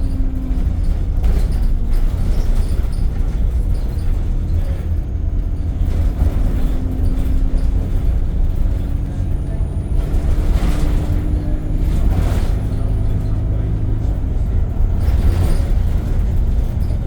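Interior sound of an ADL Enviro 200 single-deck bus on the move: a heavy, steady low drone from the engine and air compressor, with a few changes in engine pitch and short hissy surges along the way.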